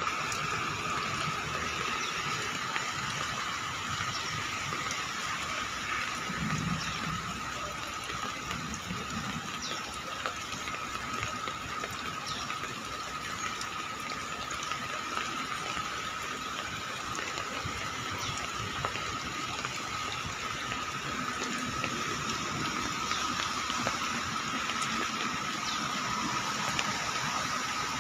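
Floodwater rushing steadily: an even wash of water noise with a thin, steady whine held underneath it.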